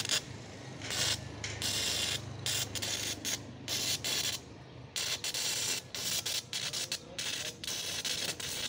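Electric arc welding on a steel roof truss: the arc's crackling hiss, coming in short stretches that break off and restart many times as the welder strikes and stops the arc.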